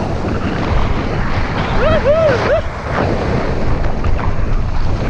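Heavy wind rumble buffeting the microphone during a fast mountain-bike ride, with a brief wavering squeal of three quick rises and falls about two seconds in.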